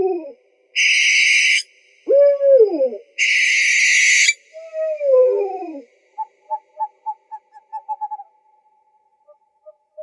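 Owl calls: pitched calls that slide downward, two harsh hissing screeches about a second long, then a quick run of short notes that trails off.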